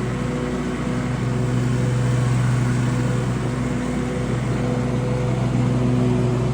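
Riding lawn mower engine running steadily at constant speed, a loud even drone.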